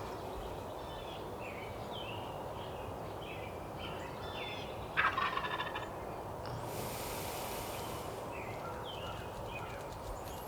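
Wild turkey gobbler gobbling once, a loud rapid rattling call about five seconds in. Small bird chirps come and go, and a short hiss follows the gobble.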